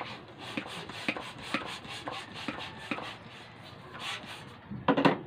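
Hand balloon pump being worked at about two strokes a second, inflating a small latex balloon. Near the end comes a brief, louder rubbing sound.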